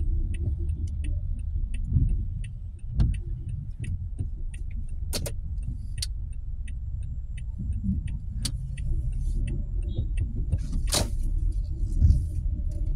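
Low, steady vehicle rumble with a faint high ticking repeating a few times a second and a few sharp clicks and knocks, the strongest about 5 and 11 seconds in.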